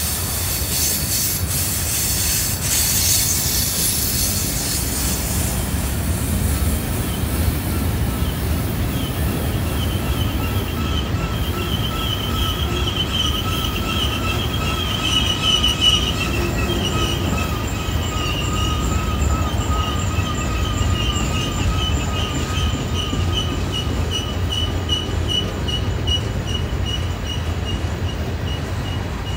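Freight train's cars rolling down the grade through a sharp curve: a steady low rumble of steel wheels on rail, with a high hiss for the first few seconds, then wavering high-pitched flange squeal from the wheels grinding against the curved rail.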